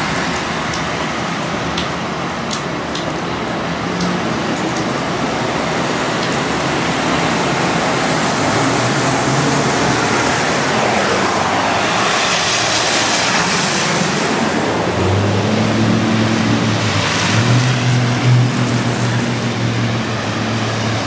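Vehicles driving through flooded street water, their tyres throwing up spray, over a steady rush of water. The spray gets louder in surges about halfway through and again near the end, and a vehicle engine's hum comes in during the last few seconds as a pickup pushes through the water.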